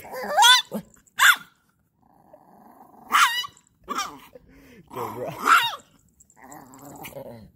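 Chihuahua growling and giving short, high-pitched barks in about half a dozen bursts, with a lower, rumbling growl near the end.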